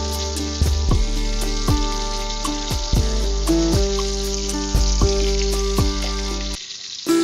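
Salted fish sizzling as it fries in hot oil in a wok, a steady hiss, under background music with a steady beat and deep bass drops. The music cuts out briefly near the end while the frying hiss goes on.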